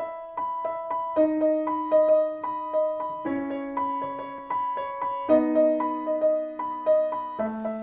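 Intro music: a keyboard, piano-like in sound, plays a quick repeating figure of short notes over held lower notes that shift every couple of seconds. A lower, richer line comes in near the end.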